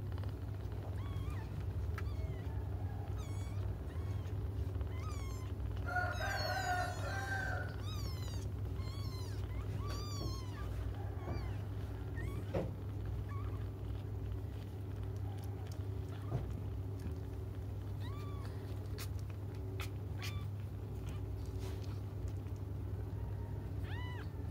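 Newborn kittens giving short, high-pitched mews while they nurse, busiest in the first half, over a steady low hum.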